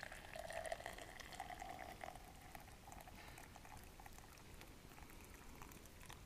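Hot tea pouring in a thin stream from a small metal pot into a stainless steel travel mug, a faint trickle that is strongest in the first two seconds and then thins out.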